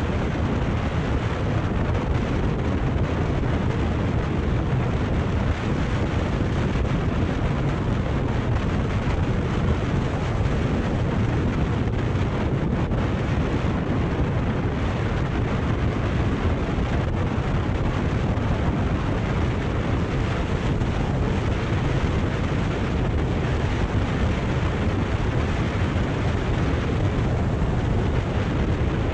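Steady wind rush over the microphone of a Kawasaki Ninja 400 cruising at a constant pace, with the bike's parallel-twin engine and road noise underneath.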